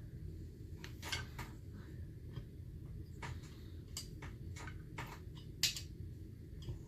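Light, irregular clicks and taps of small metal parts being handled as the flywheel and its nut are fitted onto a chainsaw crankshaft, over a faint low hum.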